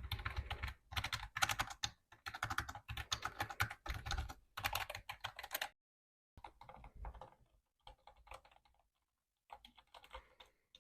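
Typing on a membrane keyboard, a before-and-after comparison of the keys with and without grease on their corners. A fast, dense run of key clicks stops about five and a half seconds in, and after a short pause a sparser, fainter run of key presses follows.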